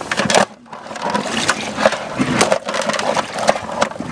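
Dungeness crabs' shells and legs scraping and clicking against a plastic bucket as one is dropped in: a quick, uneven run of small clicks and scrapes.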